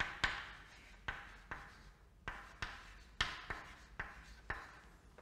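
Chalk writing on a chalkboard: a run of short, irregular taps and scratches as letters are written.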